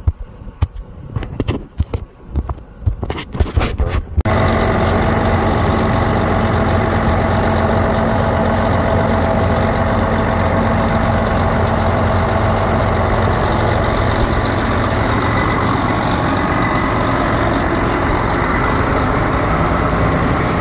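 A few knocks and rustles of handling, then, about four seconds in, a semi truck's diesel engine idling close by, loud and steady with a hiss over it.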